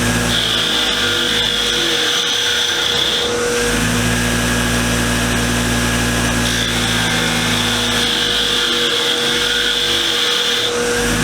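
Power wire wheel running steadily, cleaning the cast iron parts of a hand vise. A higher hiss comes and goes twice over the motor's hum, once over the first three seconds or so and again from about six to ten seconds in.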